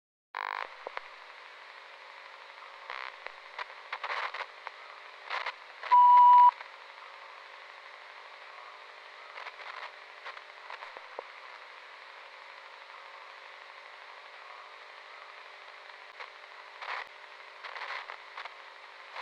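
Radio static: a steady hiss with scattered crackles and short bursts, interrupted once about six seconds in by a loud, steady half-second beep.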